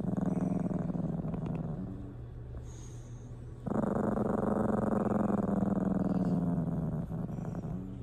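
Small dog growling: a growl of about two seconds, then after a pause a longer one of about three and a half seconds, and a short one near the end.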